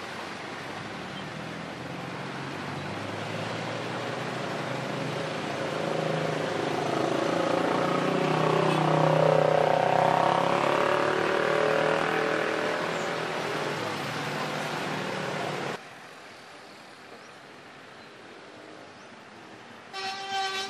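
Motorcycle and vehicle engines in slow, congested traffic, passing close by and growing louder to a peak about ten seconds in. The sound then cuts off suddenly to a quieter steady traffic hum.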